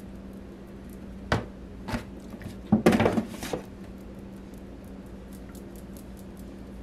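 Raw Cornish hens being handled and shifted in a disposable aluminium foil pan: two soft knocks, then a louder short clatter and crinkle of the foil about three seconds in, over a steady low hum.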